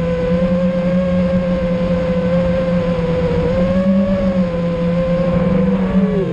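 iFlight Nazgul5 FPV quadcopter's brushless motors whining steadily in forward flight, heard from the onboard camera; the pitch dips near the end as the throttle eases.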